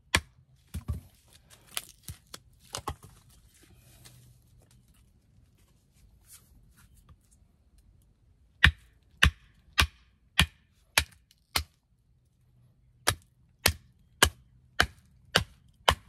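Wooden baton striking the spine of a Terra Knives Forester knife, batoning it through a small piece of oak: sharp wooden knocks. A few come at the start, then a pause of about four seconds, then two runs of about six strokes each, a little under two a second, with a short break between them.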